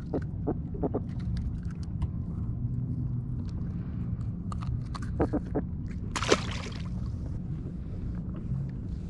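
Kayak on open water: a steady low rumble of water and wind around the hull, with scattered light clicks and knocks and a short rushing noise about six seconds in.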